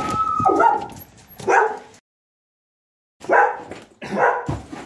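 Dog barking: a quick run of barks that breaks off into dead silence about two seconds in, then two more single barks.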